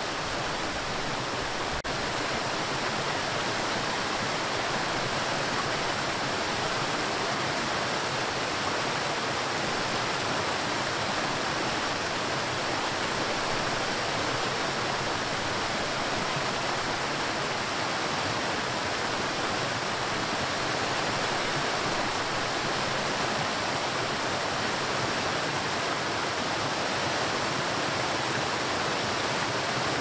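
Waterfall: the steady, even rush of water falling into a plunge pool, with a small step up in level about two seconds in.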